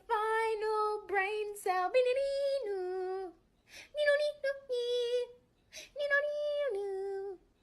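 A high voice singing a short tune in three phrases, holding level notes that step up and down.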